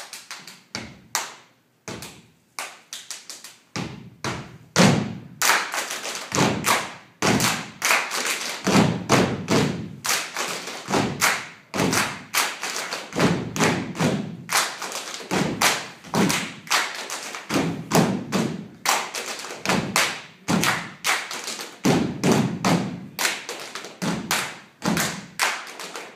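Step team stepping: rhythmic foot stomps with hand claps and body slaps, a few spaced hits at first, then a fast, dense pattern from about four seconds in.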